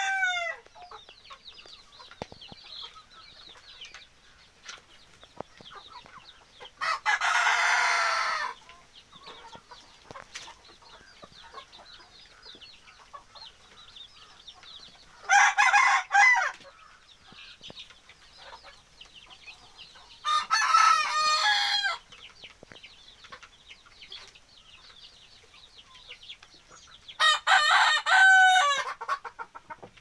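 Desi chicken roosters crowing four times, roughly every six seconds, each crow about a second or so long and falling off in pitch at the end, over the steady low clucking of a flock of hens.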